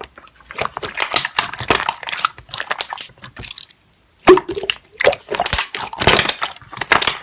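Slime being squished and worked by hand: a dense run of wet clicks and crackling pops, stopping briefly about four seconds in and starting again with one loud pop.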